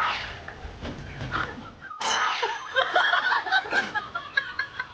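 People laughing, broken up and uneven, with an abrupt cut about two seconds in to a louder, denser stretch of laughter.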